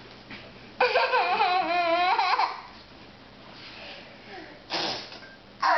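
Toddler's loud, high-pitched, wavering squealing babble lasting over a second, then a short breathy spitting burst and another loud vocal sound near the end.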